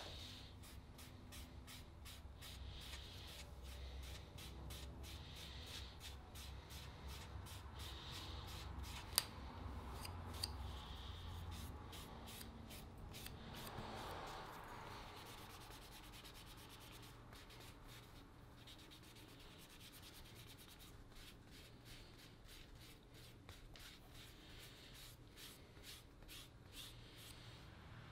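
Faint hand rubbing on the wooden kunai in many quick, even strokes, the sound of abrasive or a polishing pad worked back and forth over the wood. A single sharp tick comes about nine seconds in.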